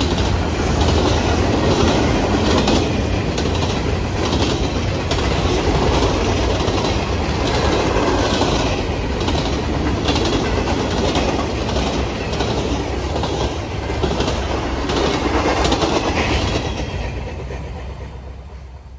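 Freight train of covered hopper cars rolling past, the steel wheels clacking rhythmically over the rail joints. The sound fades away near the end as the train moves off.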